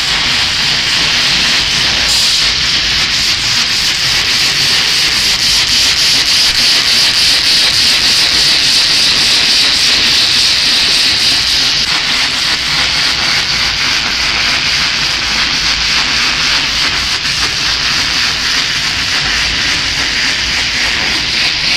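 MJ VD320 digital label die-cutting machine running, a steady hiss.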